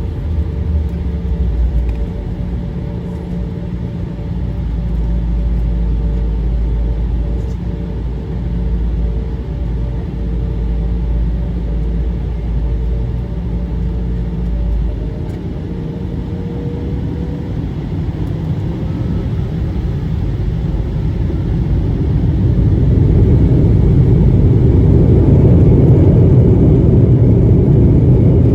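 Cabin noise of an Embraer ERJ 145 jet with its rear-mounted Rolls-Royce AE 3007 turbofans running: a steady rumble and hiss with a faint whine. About three quarters of the way through the sound grows clearly louder and fuller, as engine thrust comes up.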